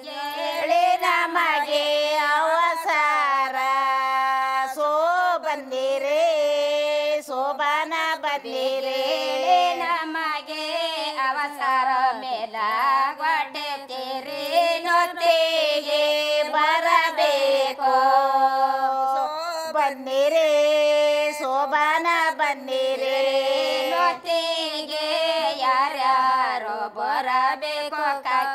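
A high voice sings a slow, ornamented melody with long held, wavering notes that bend between pitches.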